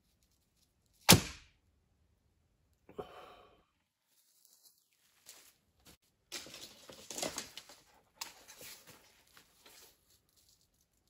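A single sharp crack about a second in as a traditional bow is loosed and the arrow strikes. Softer rustling and scraping follow.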